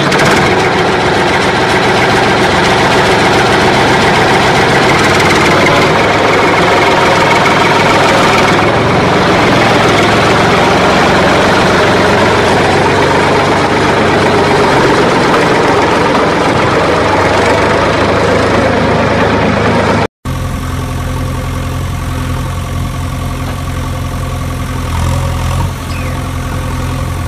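An engine running steadily and loudly. About twenty seconds in it cuts out for an instant and comes back as a lower, even engine idle.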